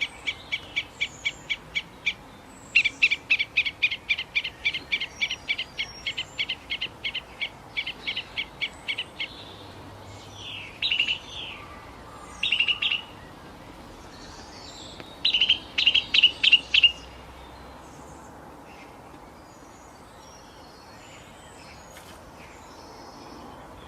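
A bird calling in fast runs of short, high chirps, about four or five a second, for the first nine seconds or so, then a few shorter bursts, over a steady background hiss.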